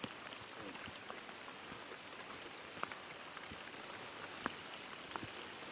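Steady rain falling, an even hiss dotted with scattered sharp drop ticks.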